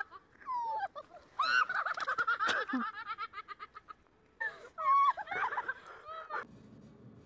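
High-pitched shrieking laughter in two bouts, with rapid giggling pulses and squeals that slide up and down; it cuts off suddenly near the end.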